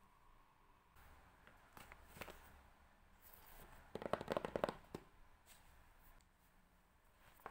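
Close-up handling sounds: soft rustles and light taps, with a burst of rapid crackling rustle about four seconds in.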